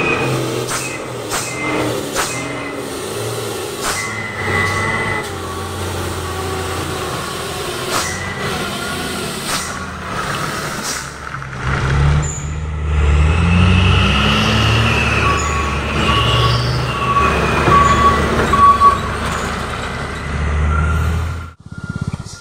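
A heavy vehicle's engine is revved in double blips on a steep descent, the revs climbing about twelve seconds in. Short air-brake hisses come in the first half, and a telolet horn plays a run of short repeated tones later on.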